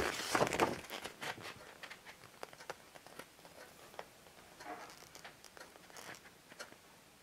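Glossy paper posters being handled against a cardboard box: a rustle of paper in the first second, then scattered faint crinkles and taps.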